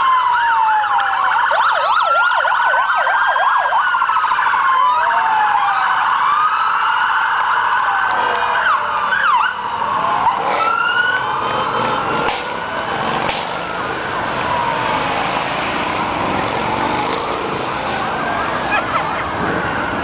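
Several police sirens from a passing motorcycle escort sound at once, overlapping slow wails with a fast yelp early on. The sirens thin out in the second half.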